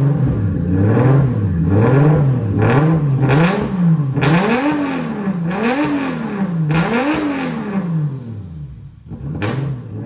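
The turbocharged RB25 straight-six of a Nissan Skyline R32 is revved through a 4-inch exhaust in a string of throttle blips, each a rising then falling pitch. The first blips are quick and short, and past halfway there are three longer pulls to higher revs before it drops back toward idle. A single sharp crack comes near the end.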